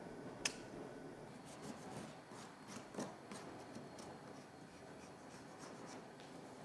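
Small carving knife scraping and shaving along the edge of spruce bark at a canoe's stem, in a run of short scratchy strokes, after a sharp click about half a second in.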